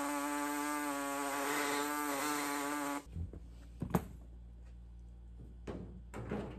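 Die grinder spinning with a steady high whine that wavers slightly as it grinds a notch into the edge of a hole in the sheet-metal body panel. It cuts off suddenly about three seconds in, and a few light knocks from handling the part follow.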